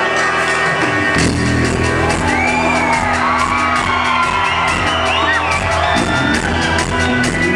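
Argentine cumbia band playing live and loud through a PA in a large hall; the bass and drums come in about a second in. Voices whoop and shout over the music.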